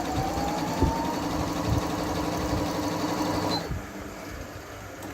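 Singer computerized sewing machine running as it sews a straight simple stitch, its motor whine rising in pitch as it speeds up. It stops suddenly about three and a half seconds in.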